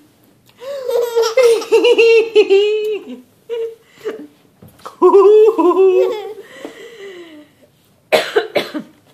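Baby laughing in several high-pitched bouts with short pauses between them.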